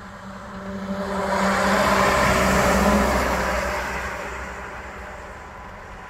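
Aerial ladder fire truck driving past: its diesel engine and tyres swell to a peak about two to three seconds in, then fade as it moves away, with no siren sounding.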